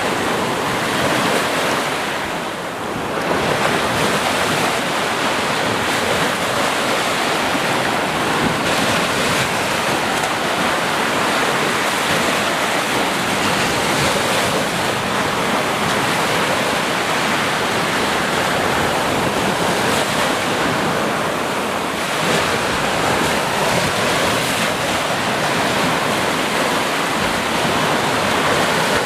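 Sea surf: waves breaking and washing in a steady, continuous rush, with a slight lull about two to three seconds in.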